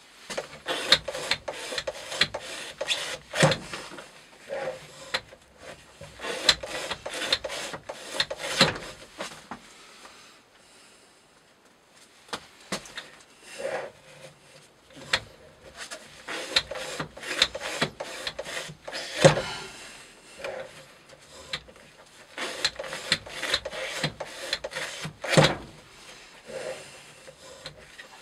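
A Maxamet knife blade in a rope-cutting rig slicing repeatedly through thick twisted rope. It makes runs of short rasping strokes, several a second, with a pause about ten seconds in and a few louder knocks from the rig. This is a cut-count edge-retention test.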